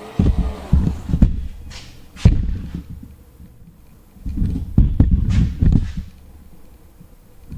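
Irregular thumps and knocks as plastic parts are pushed and fitted into place on a car's rear hatch, in two bursts with a sharp knock between them.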